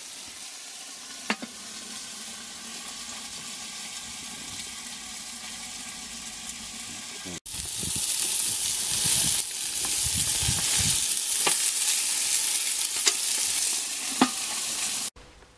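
Meat sizzling on the grate of a portable Weber gas barbecue, with a knock about a second in. A little past halfway it cuts to louder sizzling with scattered pops and ticks.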